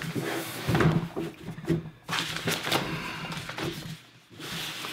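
Rustling of a protective wrap sheet and irregular knocks as the heavy aluminium Razer Core X eGPU enclosure is handled and set down on a wooden desk, the loudest knock about a second in.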